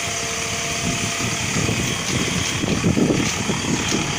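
Zetor tractor engine running steadily as it pulls a trailed field sprayer through a maize field while spraying, with irregular low rumbling that is loudest about three seconds in.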